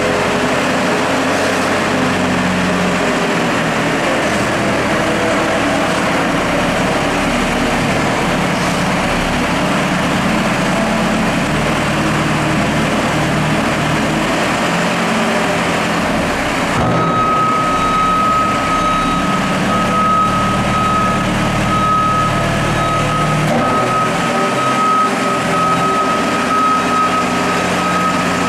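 Semax heavy forklift's engine running as it carries and stacks a 5-ton steel coil, its pitch shifting up and down as it works. About halfway through a high reversing-alarm tone starts and keeps sounding.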